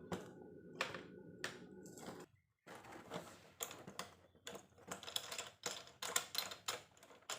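Clicks and rattles of a pole pruner's connecting pole being slotted into the garden tool's power head and fastened. A few sharp clicks over a faint steady hum, then after a brief break a busier run of irregular clicking.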